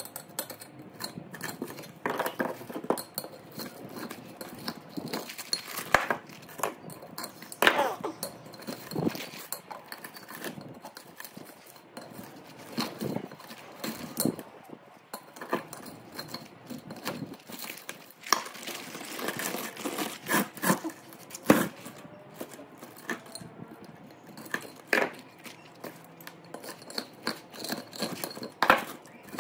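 Irregular metallic clinks, knocks and scrapes of hand tools working burnt copper windings out of a three-phase electric motor's stator, with a few louder strikes.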